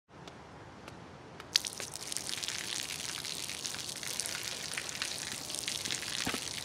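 A few separate water drips, then from about a second and a half in a thin stream of water pouring from a small pipe outlet and splashing below.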